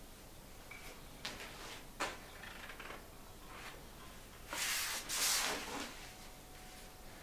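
Printed poster sheets being handled: a couple of light knocks, then two louder rustles of paper sliding over paper a little past the middle.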